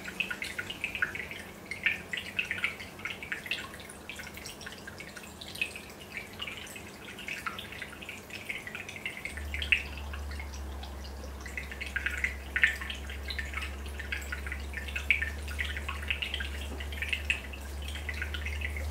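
Aquarium air bubbles rising and breaking at the water surface: an irregular patter of small plips and drips. A low steady hum comes in about halfway through.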